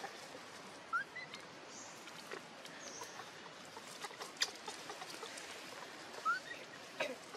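Baby macaque giving two short rising squeaks, one about a second in and another near the end, while dry leaves crackle and tick in scattered clicks as it crawls over them.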